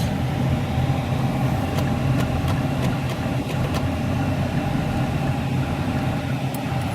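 Steady hum of a car running, engine and road noise heard from inside the cabin, with a few faint clicks.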